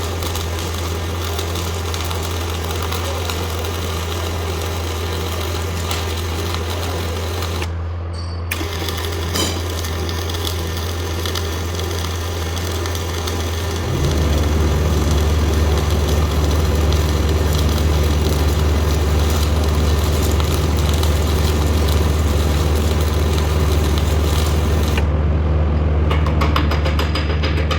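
MIG (CO2) welding arc crackling steadily over a constant low engine hum. The arc cuts out briefly about eight seconds in and again near the end, and the hum steps up partway through.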